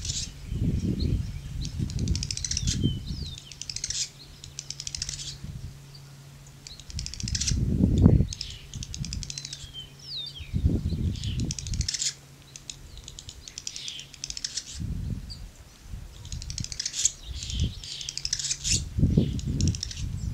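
Tree swallows giving bursts of rapid clicking mixed with short chirps, the clicking that seems to be the pair's signal to begin mating. Low fluttering bursts of wing-flapping come in between, the loudest about eight seconds in.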